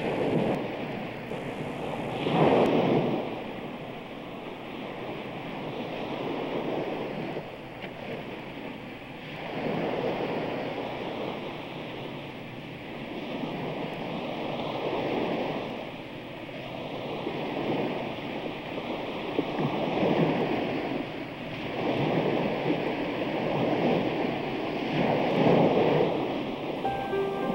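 Ocean surf: waves breaking and washing in, a steady rushing hiss that swells and falls every few seconds.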